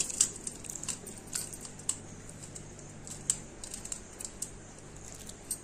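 Scattered light clicks and taps, short and irregular, a dozen or so over a few seconds, over a faint low hum.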